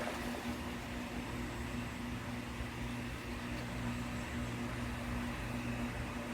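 Steady low mechanical hum with a faintly wavering tone, over a constant hiss.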